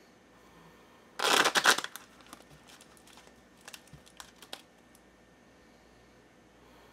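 A deck of tarot cards being shuffled by hand. About a second in there is a short, loud burst of rapid card flicking, followed by softer scattered clicks and slides of the cards for a few seconds.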